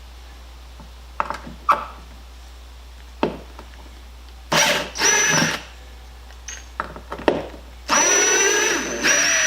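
Cordless impact driver backing out wood screws in trigger bursts: a short run about four and a half seconds in and a longer one near the end. Between them come a few sharp knocks of the bit and screws being handled.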